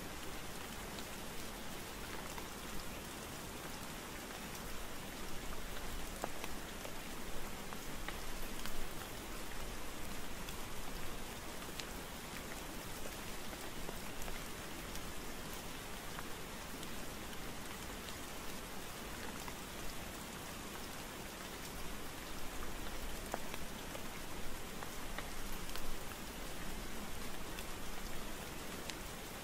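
Steady rain falling: an even hiss with scattered drops tapping.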